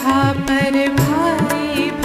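Indian classical-style background music: a steady drone under a wavering melodic line, with low drum strokes that bend in pitch.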